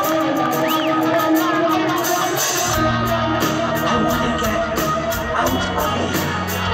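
Rock band playing live through a concert PA: sustained electric guitar over steady cymbal ticks, with a low bass part coming in a little under three seconds in.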